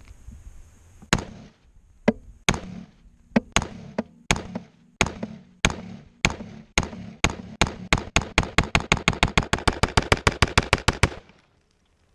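AR-15 rifle firing 5.56 ammunition semi-automatically: a long string of several dozen sharp shots, widely spaced at first and then speeding up to rapid fire of about four or five shots a second before stopping suddenly.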